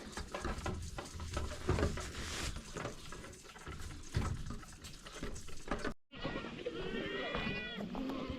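Scattered rustling, clicks and low knocks of handling and movement, then goats bleating for the last couple of seconds.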